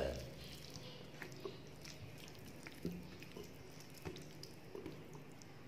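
Faint eating sounds: fingers mixing and scooping soft khichuri on a steel plate, with scattered small wet clicks of chewing. A sharper click right at the start.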